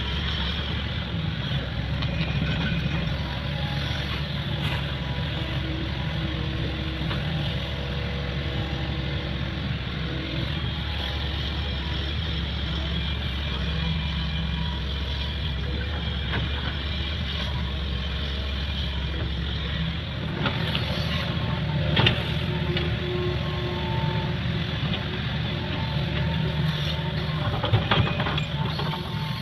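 Diesel engine of a hydraulic excavator running steadily while it digs out a ditch, with a few sharp knocks, the loudest about two-thirds of the way through and near the end.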